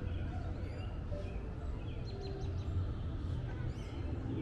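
Rainbow lorikeets chattering: scattered short chirps and squeaks over a steady low rumble.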